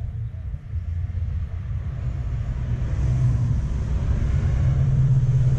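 Low rumble of a passing road vehicle, growing louder from about halfway through.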